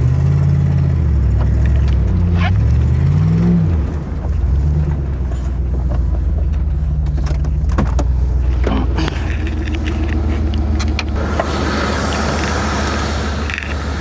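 Skidder engine running under load as it pushes snow, its pitch rising and falling with the revs, with a few sharp clanks about eight seconds in.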